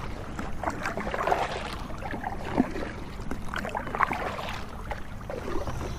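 Kayak paddle strokes: the blades dip and splash in the water, with drips and water washing along the hull in an irregular rhythm of strokes.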